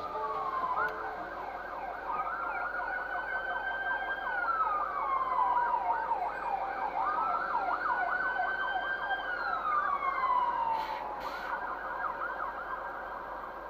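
Emergency vehicle siren heard from inside a car: a slow wail that rises, holds and falls twice, over a fast, continuous warble.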